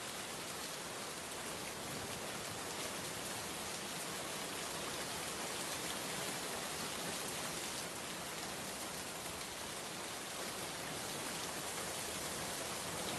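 Steady rain falling on a surface, a dense even hiss of many small drops ticking.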